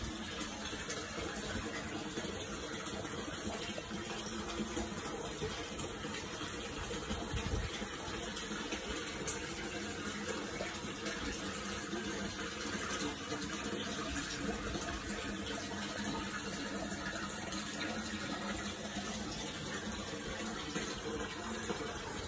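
Steady rush of running water in a koi pond, with a faint steady hum beneath it.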